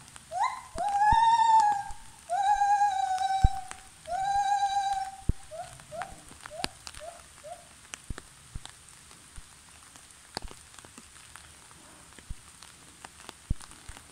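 Gibbon calling: a few short rising hoots, then three long held hoots, then a run of short rising hoots that gets shorter and stops about halfway through. After that only scattered ticks of rain drops are heard.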